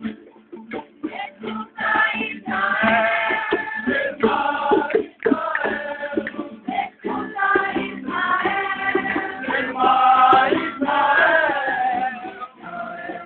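A group of men and women singing together to strummed nylon-string acoustic guitars.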